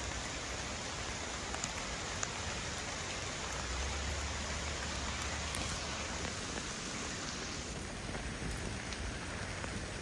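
Steady rain falling, with a few sharp ticks close by.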